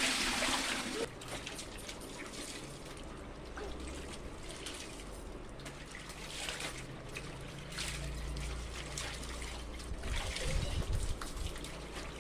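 Water trickling, louder in the first second, with scattered faint clicks.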